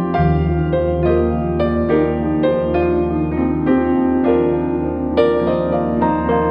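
Soft, slow piano music: single notes struck one after another over a held low bass chord.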